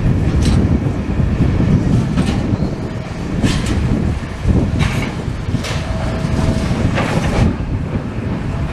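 Demolition machinery running with a steady low rumble, while debris and metal clank and crash irregularly as the building is pulled apart.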